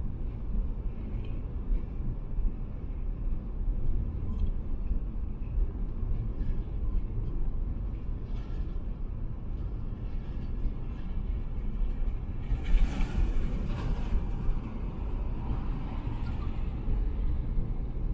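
Steady low rumble of tyres and engine heard from inside a car at expressway speed. About two-thirds of the way through, a brief louder rush of noise as a heavy lorry alongside is passed.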